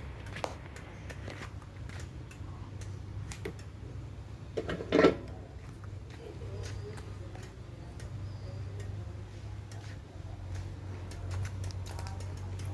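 Irregular light clicks and ticks from a small toy bicycle being worked by a green pied parrot, over a low steady hum, with one short loud squawk about five seconds in.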